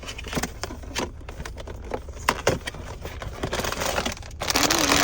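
Toy packaging being handled and opened: irregular crackles and clicks of plastic and card, then a dense crinkling rustle starting about four and a half seconds in as wrapping is torn or crumpled.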